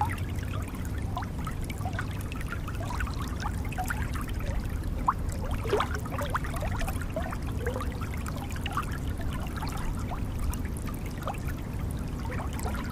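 Waterfall water pouring and splashing: a steady low rush with many quick trickling, gurgling splashes over it.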